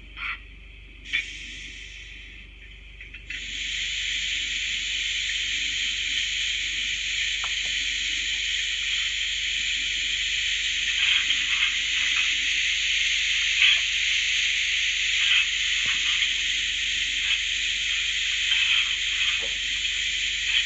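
DCC sound decoder of a Dapol OO-gauge A1X Terrier model tank engine standing still, playing steam sounds. After two short sounds in the first couple of seconds, a loud steady steam hiss comes on about three seconds in and carries on, with faint ticks and clicks through it.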